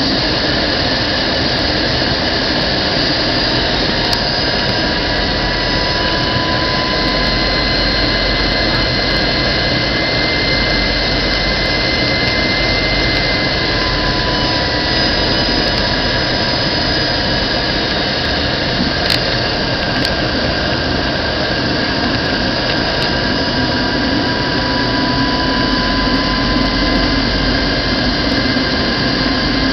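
Steady jet engine and airflow noise heard inside an airliner cabin on approach. Faint high whining tones drift slowly in pitch throughout, and a low hum grows a little stronger in the last few seconds.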